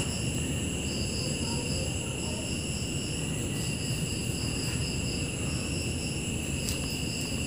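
Crickets trilling steadily in the background: several constant high-pitched trills, one of them switching on and off every second or so, over a low steady hiss.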